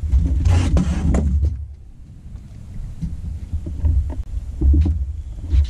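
Wind buffeting the microphone as a gusty low rumble, with a brief rustle about half a second in and a few light knocks of gear being handled in a boat.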